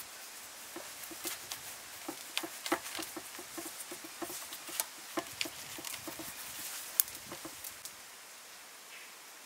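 Salt being sprinkled over a whole raw fish in a stainless steel tray and rubbed into its skin by hand: a run of small ticks and soft pats that stops about eight seconds in.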